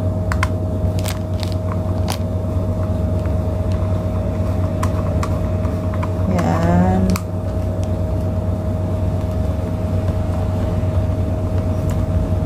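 A steady low mechanical hum with a faint constant tone runs throughout. Over it come a few light clicks and taps from a plastic-and-metal antenna rod being twisted onto its magnetic base. A brief voice-like murmur comes a little past the middle.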